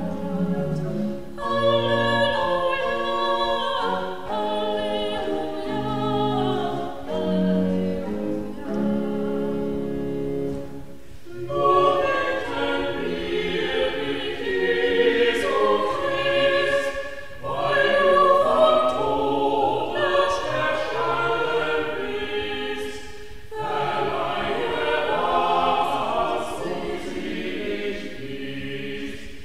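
Small mixed choir singing a sacred piece in several parts, in long held phrases with brief breaks between them.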